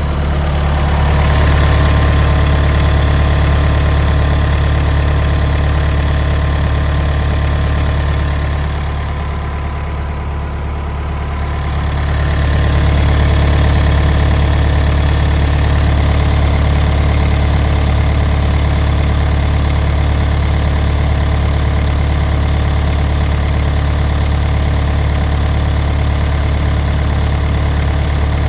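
Diesel engine of a 2007 Case 430 skid-steer loader running steadily, easing off for a couple of seconds around the middle before coming back up to speed.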